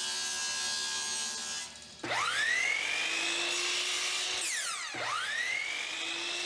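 A table saw runs steadily for the first second and a half. Then a miter saw is started twice, a few seconds apart: its motor whines up to speed, the blade chops through a thin hardwood strip, and it winds down after the cut.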